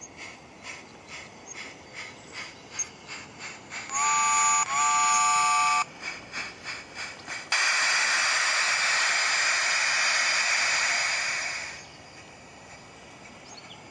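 Steam locomotive effects from a MyLocoSound Universal Steam soundcard in a 16mm-scale garden railway loco. Steady chuffing at about two beats a second runs through the first seven seconds, with a whistle blast, a chord of several tones that steps up in pitch partway, about four seconds in. From about seven and a half seconds a loud safety-valve hiss takes over, then cuts off about twelve seconds in.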